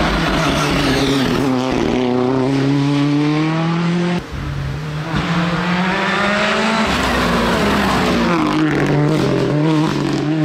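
Ford Fiesta R5 rally car's turbocharged four-cylinder engine revving hard, its note climbing and dropping through the gears, with a sudden break about four seconds in.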